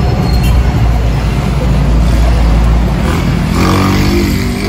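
Street traffic: a heavy, steady engine rumble from vehicles going by, with one vehicle's engine note rising about three seconds in.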